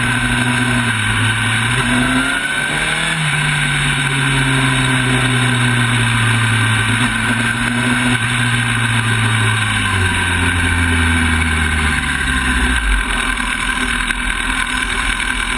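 Sport motorcycle engine slowing down heard from on board the bike, with a constant rush of wind. The revs rise briefly about two seconds in, then the engine note falls steadily as the bike decelerates, dropping in steps near the end toward a low, idle-like run.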